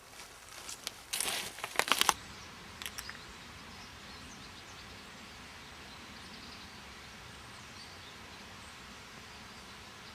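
Several sharp crunching, crackling bursts in the first two seconds and a few clicks a second later, then a steady hiss of outdoor background noise.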